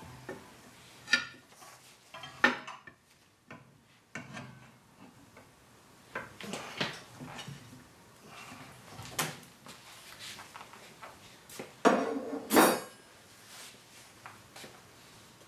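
Scattered metallic clinks and knocks of tools and parts being handled at a tire changer. The loudest two come close together about twelve seconds in.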